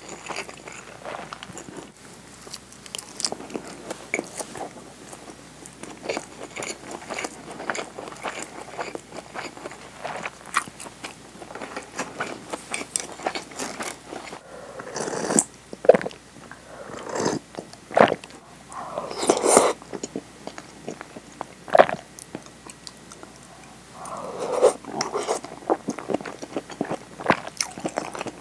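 Close-miked chewing of a nori-wrapped rice ball (onigiri): soft wet mouth sounds with many small crackles and clicks, and a run of louder chews past the middle.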